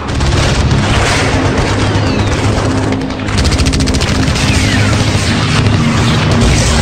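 War-scene sound effects: rapid gunfire and booming explosions mixed over music, loud and dense throughout.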